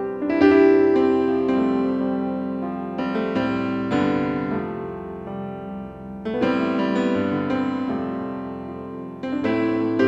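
Slow piano music: chords struck every few seconds and left to ring and fade.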